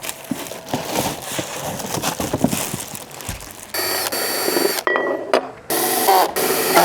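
Rustling and clicking as loudspeaker packaging is handled, then two loud, harsh bursts of about a second each, one near the middle and one at the end.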